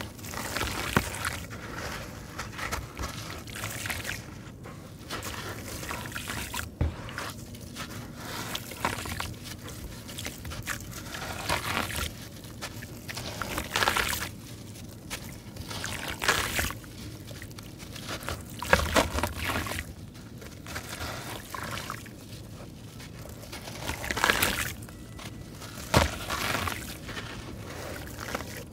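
Wet sand-cement chunks crunching and crumbling between hands, the grainy grit pouring and trickling back into a shallow tub of water. It comes in irregular bouts every second or two, some louder than others.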